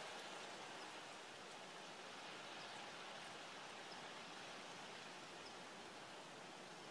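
Faint, steady outdoor ambience of soft wind rustling through a grassy meadow, with a few faint high ticks.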